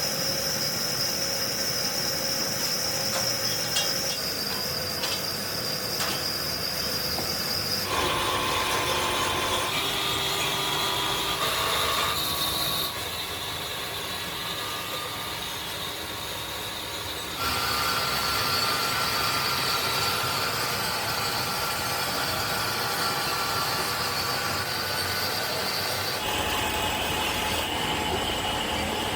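Factory machinery running, a steady mechanical noise with a held high whine, whose pitch and make-up change abruptly several times.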